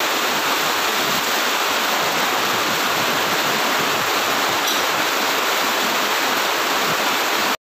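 A loud, steady, even hiss like rushing water or static, which cuts off abruptly near the end.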